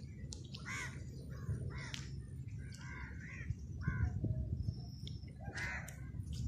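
Crows cawing: a string of short, harsh caws, several in the first four seconds and one more near the end, over a low steady rumble.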